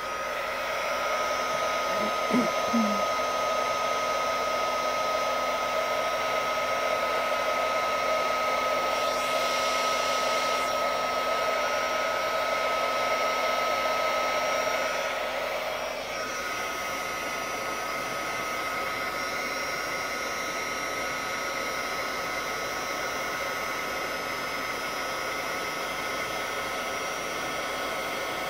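Embossing heat gun running steadily, a blowing hiss with a steady high whine, as it warms up and then melts clear embossing powder on stamped card. About sixteen seconds in it gets slightly quieter and the whine shifts a little.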